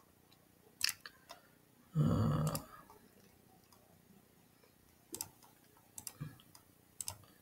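Scattered computer mouse clicks, a few at a time, with a brief muffled noise about two seconds in that is louder than the clicks.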